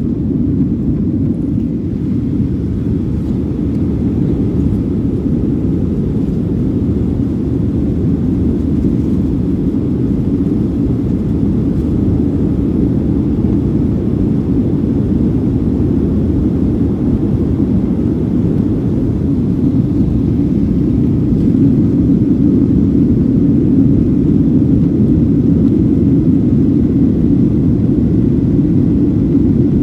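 Airplane engine noise: a steady low rumble that grows a little louder about two-thirds of the way through.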